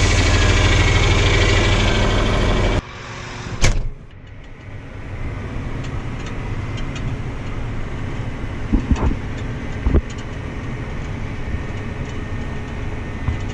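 A vehicle engine running loudly; about three seconds in it cuts off abruptly to a quieter, steady engine rumble, with a sharp click just after and a few knocks later on.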